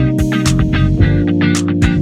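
Background music: a guitar-led track with a steady drum beat and bass.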